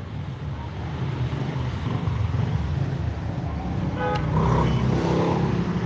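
Busy street traffic: a steady low rumble of vehicle engines that slowly grows louder, with a short horn toot about four seconds in.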